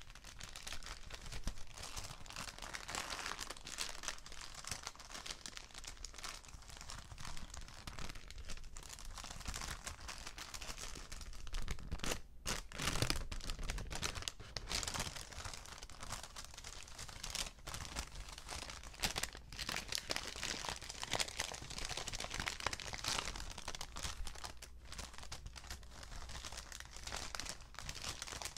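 Paper bags being crinkled and crumpled by hand, a continuous dense crackling. It pauses for a moment about twelve seconds in, then comes back louder.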